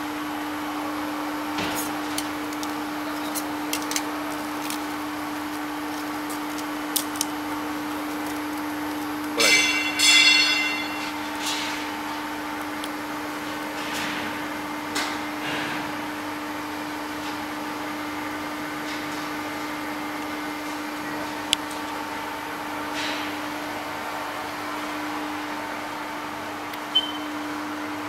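Pieces of thin cut glass clicking and clinking as they are handled over a steady electrical hum, with a brief bright rattle of glass about ten seconds in.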